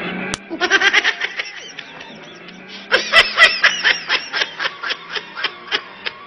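Laughter-like vocal chattering in quick runs of short pitched pulses: a brief run about a second in, then a longer, louder one from about three seconds in. A single sharp click comes just before the first run.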